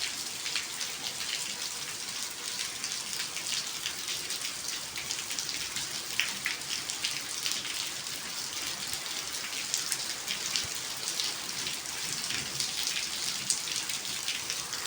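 Steady rain falling, a dense hiss of many drops pattering on a hard surface.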